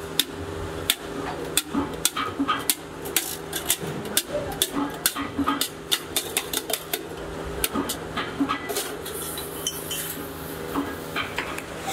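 Hand hammer striking sheet steel: a quick, uneven run of sharp metal-on-metal taps as a plate is driven into the top of a steel muffler tube. The strikes thin out to scattered clinks of cut sheet-metal pieces being handled near the end, over a steady low hum.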